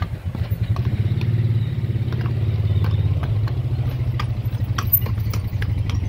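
A small engine running steadily close by, its pitch lifting slightly about a second in, with scattered sharp clicks over it.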